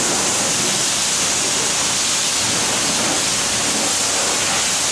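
Smart Cyclone automatic car wash running: water spray and spinning side brushes scrubbing a car's body make a steady, loud hiss.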